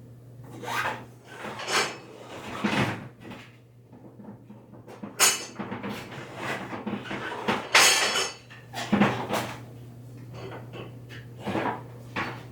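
Irregular clattering and scraping of things being handled: a dozen or so knocks and rubs, the loudest a few seconds in and about eight seconds in, over a steady low hum.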